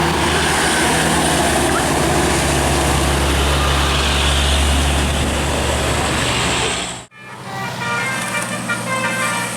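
A large bus passing close with its diesel engine running loudly, a low steady drone under a rush of road noise. About seven seconds in, the sound cuts off sharply and a bus telolet horn starts, playing a quick tune of short notes that step up and down in pitch.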